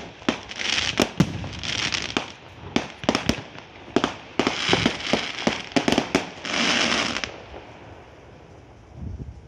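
Fireworks going off: many sharp bangs in quick succession mixed with half-second bursts of crackle, dying away about seven seconds in.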